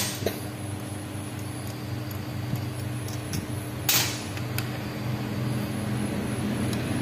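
An engine running steadily with a low, even hum. There is a click at the start and a short, sharp clatter about four seconds in.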